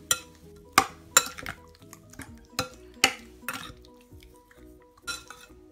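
A spoon knocks against a glass mixing bowl while it stirs chunks of marinated pork. The sharp clinks ring briefly and come unevenly, about every half second to a second.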